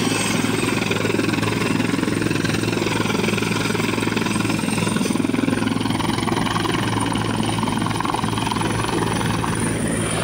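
Helicopter rotor and turbine engine running steadily as it lifts off, with a thin high whine that rises slightly in pitch about halfway through.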